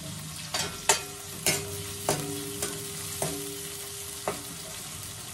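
A steel ladle stirring chopped onions frying in oil in a steel kadhai: a steady sizzle, with the ladle knocking against the pan about seven times, each knock leaving a short metallic ring.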